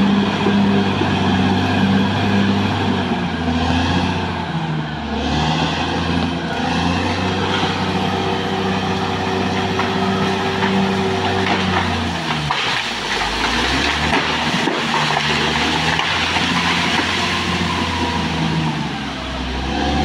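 Caterpillar D6R XL bulldozer's diesel engine working under load while pushing brush and fallen trees. The engine note drops and recovers several times as the blade bites. The second half brings a rougher stretch of crackling and clatter.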